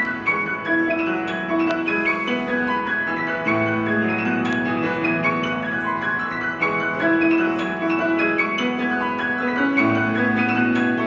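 Instrumental background music of rapidly struck, ringing notes over a sustained lower line.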